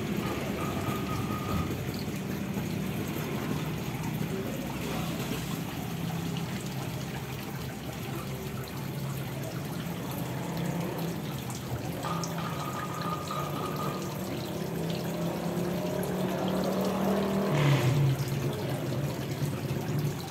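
Water spilling from a small waterfall spout into a koi pond, a steady trickling splash. A brief louder low noise rises near the end.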